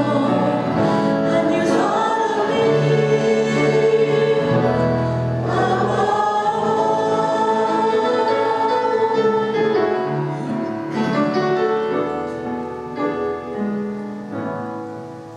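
A worship song sung by a group of voices with band accompaniment, coming to its end: the last chord dies away over the final few seconds.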